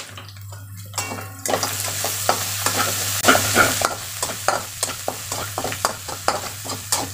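Onions and green chilli paste sizzling in hot oil in a metal kadhai, stirred with a slotted steel spatula that scrapes the pan in quick strokes, about four a second. The sizzle thickens about a second and a half in.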